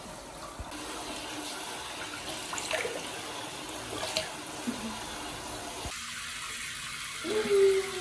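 Water from a handheld shower head running into a plastic tub of water: a steady splashing hiss with a few small splashes. Near the end a drawn-out, slightly falling voice-like call starts over it and is the loudest sound.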